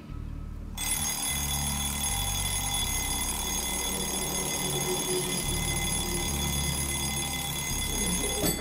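Mechanical twin-bell alarm clock ringing steadily, starting about a second in.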